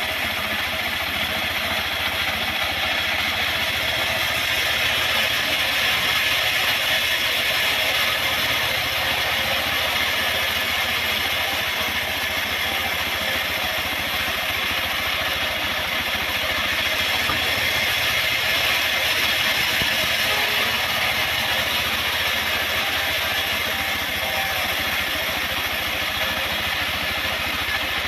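Engine-driven homemade sawmill running steadily, with a continuous mechanical clatter over the engine hum.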